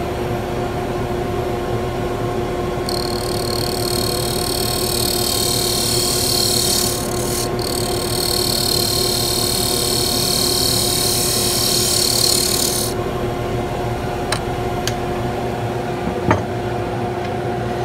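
Mini wood lathe running with a steady motor hum, and for about ten seconds in the middle a hiss as the spinning wood bangle is worked. A few light clicks near the end.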